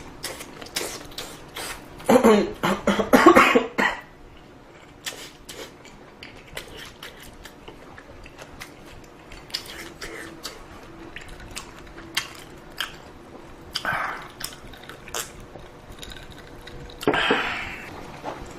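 A person coughing and clearing her throat in short bouts, loudest about two seconds in and again near the end. Light clicks of utensils on a bowl come in between.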